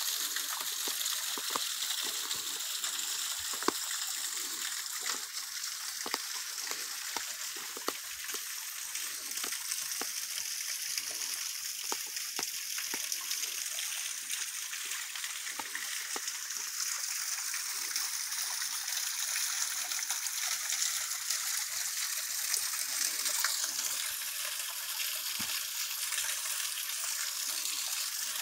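A small waterfall trickling and splashing down a rock face: a steady hiss of falling water, with scattered light clicks.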